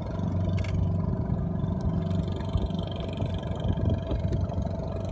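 A small boat's engine running steadily, a low even drone.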